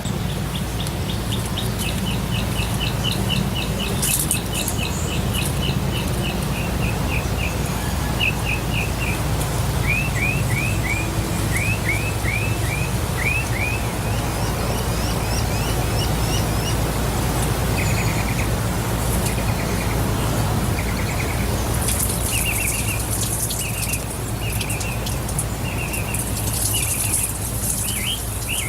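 Waterfall rushing steadily, with a bird calling over it: fast runs of high chirps, then a series of down-slurred notes, then short repeated chirps.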